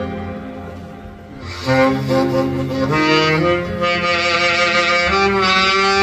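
Saxophone playing a trot melody over a recorded backing track; after a soft lull in the backing, the saxophone comes in about a second and a half in with long held notes that step from pitch to pitch.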